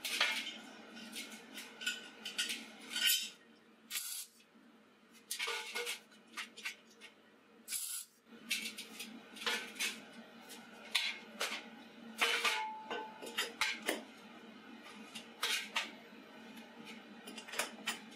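Welded steel tube frame knocking and scraping against a slotted steel welding table as it is handled and turned, in a string of irregular metallic clanks.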